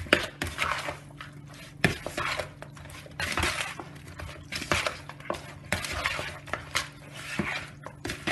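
Metal spoon stirring seasoned raw chicken pieces in a bowl: irregular wet scraping with sharp clinks of the spoon against the bowl.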